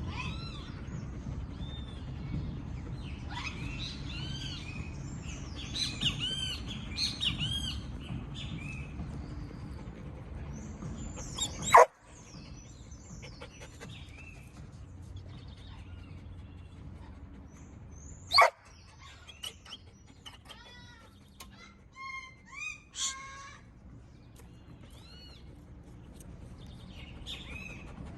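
Several wild birds chirping and singing in short, repeated arched notes, over a low rumble in the first half. Two sharp, loud clicks are heard, about 12 and 18 seconds in; they are the loudest sounds.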